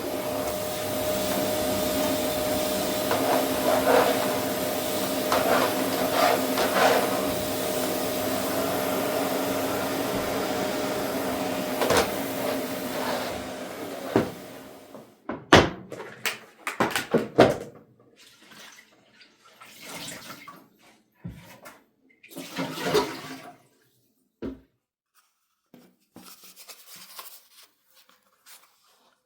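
Water running steadily for about fifteen seconds, then stopping abruptly, followed by a series of scattered light knocks and clatters.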